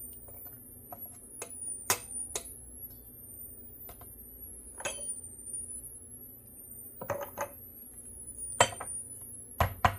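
Spoon clicking and tapping against a jar and canning funnel as chopped onions are spooned in: a scattered series of sharp taps, the loudest near the end.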